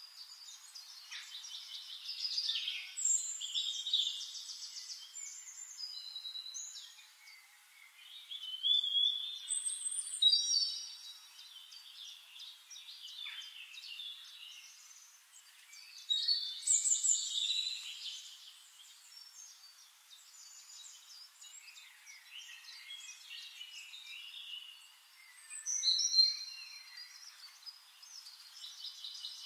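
Several songbirds singing over one another: a dense mix of high chirps, whistles and fast trills, with louder phrases standing out every few seconds.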